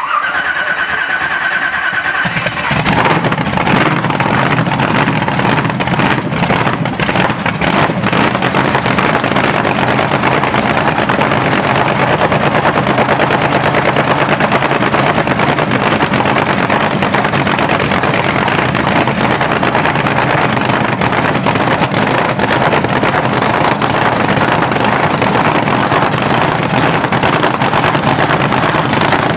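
Supercharged Chevy 468 big-block racing engine running on methanol with a 6-71 blower, on its first start after a full winter rebuild: about two seconds of starter cranking with a rising whine, then it fires and runs steadily and loud through open, unmuffled exhaust stacks. A few sharp cracks come between six and eight seconds in.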